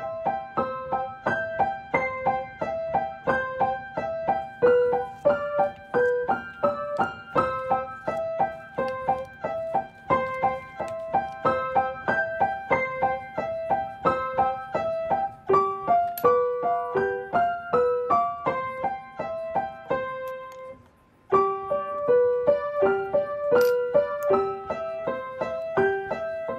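Background piano music: a steady, lilting run of light repeated notes, broken by a brief pause about 21 seconds in.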